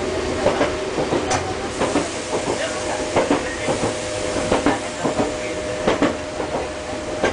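Enoden (Enoshima Electric Railway) train running, heard from inside the passenger car. The wheels click over the rails at an uneven pace under a steady hum.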